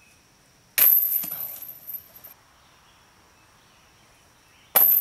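Disc golf discs striking the metal basket: a sudden clatter and jingle about a second in that rings out for over a second, then a second strike near the end.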